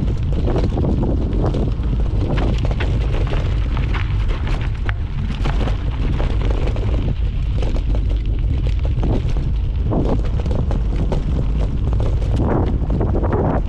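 Wind buffeting the microphone in a steady low rumble, with constant rattles and knocks from a mountain bike descending a rough trail.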